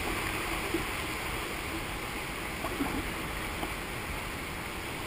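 Sea swell washing over the rocks at the water's edge and around the kayak: a steady rushing of water, with a couple of faint knocks.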